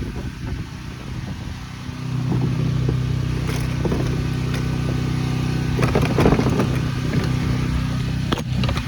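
Briggs & Stratton portable generator engine running steadily at its governed speed, now starting and running after the repair; it grows louder about two seconds in. A few brief knocks from handling it.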